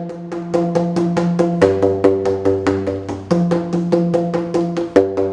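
Hollow tubes of different lengths, open at one end, struck in a quick rhythm of about four hits a second, each hit giving a short pitched pop. The notes change as different tubes are played, with a lower note joining in partway through.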